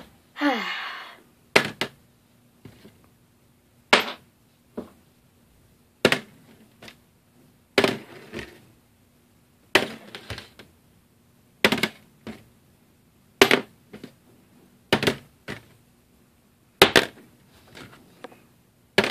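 An empty bullet casing is flipped again and again and clatters down onto a hard tabletop. There is a sharp click about every two seconds, roughly nine times, as the shell lands and falls over.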